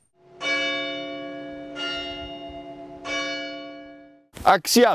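A church bell struck three times, about a second and a half apart, each stroke ringing on and slowly fading.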